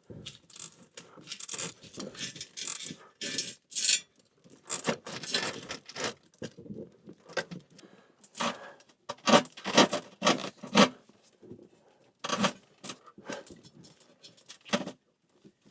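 Irregular scraping and rubbing as an electrical cable is pushed and pulled through a tight passage, in many short bursts of varying strength.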